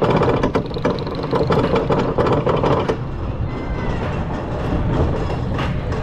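Roller coaster lift hill clattering with rapid clicks as the chain pulls the train up. About three seconds in the clatter stops, and the train crests and rolls on with a steady rumble of wheels on the steel track.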